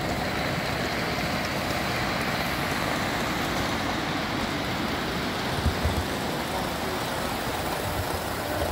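Model diesel locomotive and its long train running along an outdoor model railway track: a steady rushing rumble of wheels on rail, with a couple of low thumps about six seconds in.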